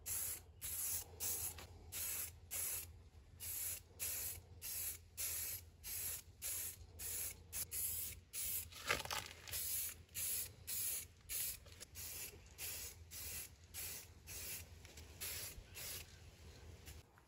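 Aerosol spray can of gloss blue paint hissing in short, even bursts, about two a second, as coats are passed over the parts. The bursts weaken and stop near the end, with one short, sharper sound about halfway through.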